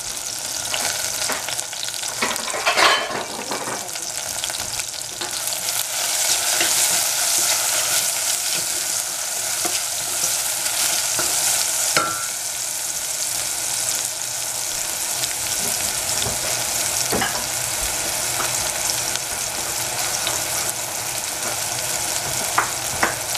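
Sliced shiitake mushrooms sizzling in hot oil in a stainless steel saucepan, stirred and scraped with a wooden spatula. The sizzle is steady and grows louder about five seconds in, with a few sharp clicks of the spatula against the pan.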